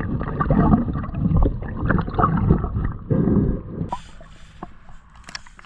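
Muffled underwater gurgling and bubbling from a submerged camera, with scattered knocks as a hand works along a boat hull during bottom cleaning. It quietens about four seconds in.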